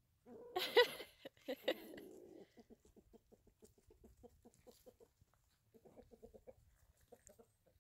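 Chickens: a loud call lasting about two seconds, then rapid clucking in runs of short notes at about five a second.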